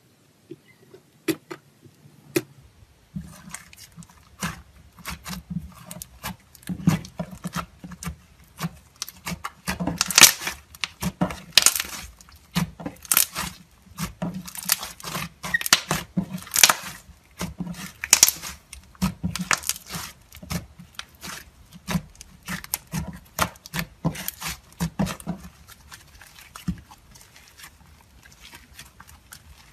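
Thick slime squeezed and kneaded by hand, giving irregular pops, clicks and crackles, several a second, thickest in the middle.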